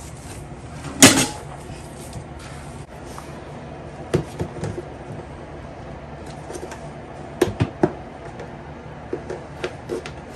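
Masa dough being mixed and kneaded by hand: irregular soft knocks and taps, the loudest about a second in and small clusters later, over a steady low background hum.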